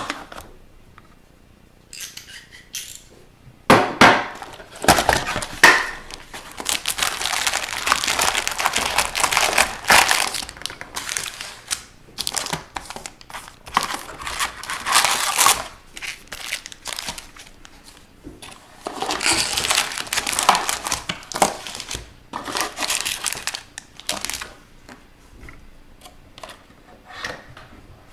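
Plastic wrapping crinkling and tearing in irregular bursts as a sealed box of trading cards and its packs are opened by hand.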